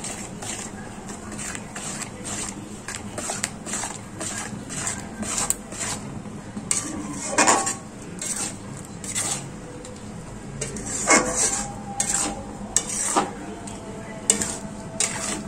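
Metal spatula scraping and knocking against a metal wok, stirring grated coconut into a thick sweet syrup, in irregular strokes with a few louder clanks that ring briefly.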